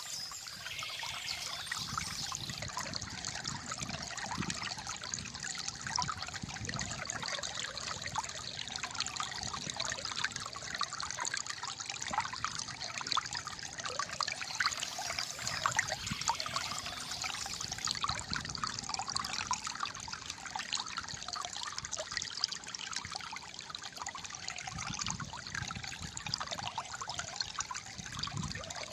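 Calm flowing water gurgling and trickling steadily.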